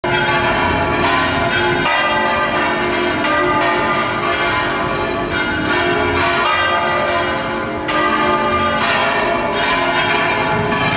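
Church bells ringing in a continuous peal: fresh strikes every second or so over a steady hum of overlapping tones.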